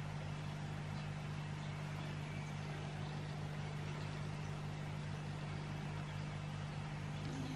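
A steady low hum with a fast, even flutter in it, over faint hiss.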